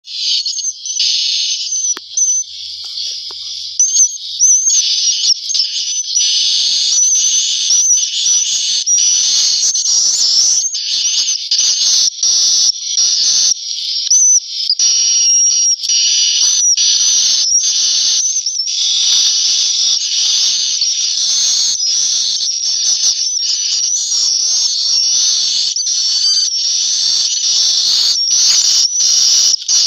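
Swiftlets (walet) in a swiftlet house, many birds twittering at once in a high-pitched, unbroken chatter that thickens after the first few seconds. Picked up by the house's sensor microphone.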